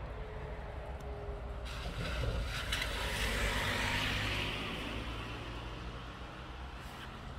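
Heavy engine running steadily with a low rumble. About two seconds in, a loud hissing rush rises and fades out again by about five seconds.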